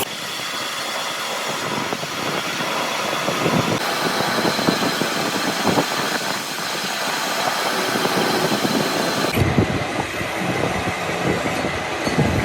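Steady, loud workshop machinery noise during the axle-shaft repair, changing abruptly a few times.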